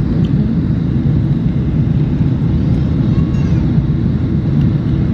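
Airliner cabin noise in flight: the steady, even low rumble of the engines and the airflow past the fuselage.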